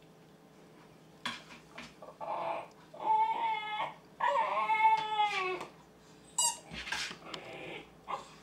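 Siberian husky puppy howling in short bouts: a few brief cries, then two longer wavering howls about three and four seconds in, the second falling in pitch at its end, and a few short yelps after.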